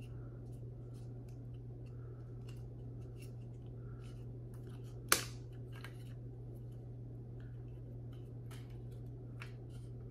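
Light clicks and taps of a small plastic toy accessory being handled in the fingers, with one sharp click about five seconds in, over a steady low hum.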